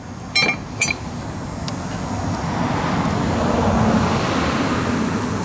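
A road vehicle passing by, its noise swelling to a peak about four seconds in and then easing off. Two light metallic clicks with a brief ring sound about half a second in, as small metal parts are handled.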